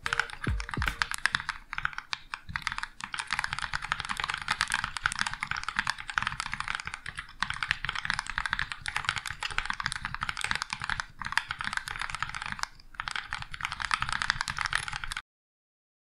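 Continuous fast typing on an IDOBAO ID80 mechanical keyboard fitted with lubed Gateron Yellow linear switches and GMK Modern Dolch keycaps: a dense, even clatter of keystrokes with a few brief pauses, cutting off suddenly shortly before the end.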